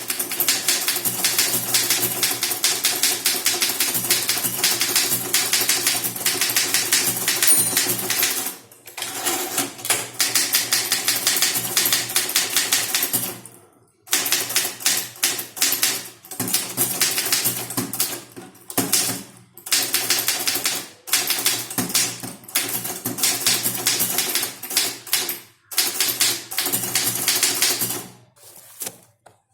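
Typewriter being typed on at speed: a fast, continuous run of key strikes, broken by short pauses several times.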